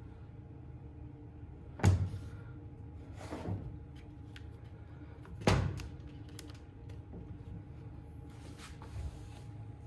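Knocks and thunks of a plastic-housed chainsaw being turned over and set down on a workbench while its fuel line is fed through, with two sharp knocks about two seconds and five and a half seconds in and lighter taps between. A steady low hum runs underneath.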